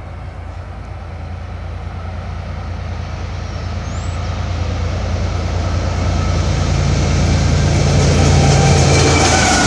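A train approaching: the locomotive's low engine rumble and the rail noise grow steadily louder.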